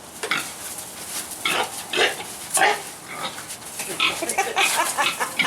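Pigs grunting in a run of short, irregular calls.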